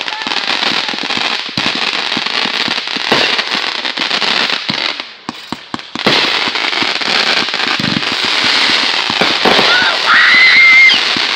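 Consumer aerial fireworks going off in quick succession: a dense run of pops and crackles from bursting shots, with a short lull about five seconds in before the barrage resumes with a sudden bang. Near the end a high whistle rises and holds briefly.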